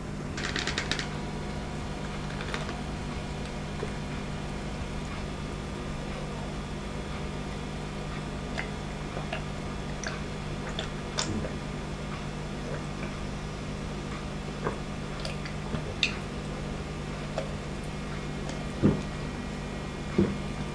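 A man drinking an iced drink from a plastic cup: scattered small clicks and ticks of ice shifting and the cup being handled, with a couple of soft knocks near the end, over a steady low hum.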